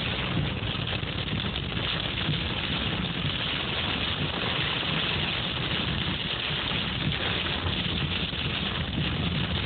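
Hail pelting a car's roof and windshield, heard from inside the cabin: a dense, steady clatter of small impacts over a low rumble.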